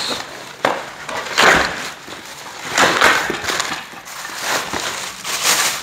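Plastic packaging crinkling and rustling in several irregular bursts as it is pulled off a part of the chair.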